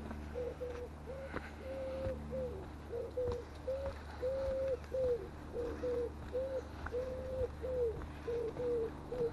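A common wood pigeon cooing, repeating its soft multi-note phrase over and over. Each phrase has one long stressed coo among shorter ones and comes round about every two and a half seconds.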